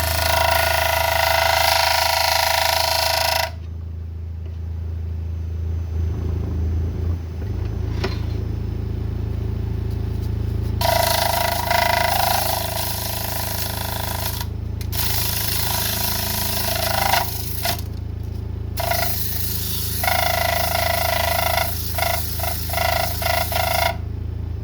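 Wood lathe running with a yellow cedar and walnut bowl blank spinning: a steady motor hum that shifts in speed a few seconds in, overlaid by loud stretches of tool-on-wood cutting noise. The cutting stops for a while after the first few seconds and then resumes, broken by several short pauses as the tool is lifted off.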